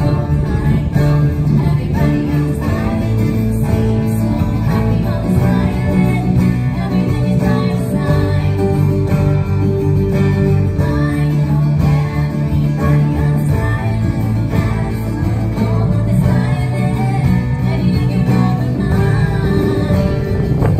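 Live Polynesian band music: acoustic guitars strummed and plucked, with a singer at a microphone.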